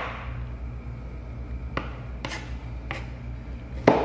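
Kitchen knife chopping red chilli on a plastic cutting board: a few separate knife taps on the board, the loudest near the end.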